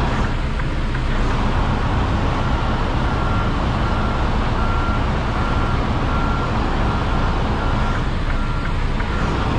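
Semi truck's diesel engine running at low speed while the 2021 Freightliner Cascadia backs a trailer into a parking spot, with a reverse alarm beeping steadily about twice a second.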